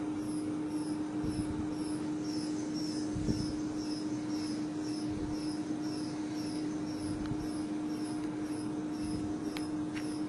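Testing machine running under load during a four-point bending test: a steady electric hum with a high chirp repeating about three times a second. A few faint sharp ticks near the end come from the carbon-textile-reinforced geopolymer panel cracking as it bends.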